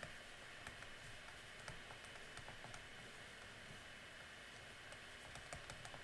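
Faint, irregular clicks and taps of a pen stylus on a tablet during handwriting, over a low steady hiss.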